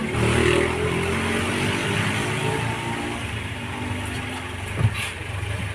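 A motor vehicle's engine running, its pitch drifting slowly down, with a single short knock about five seconds in.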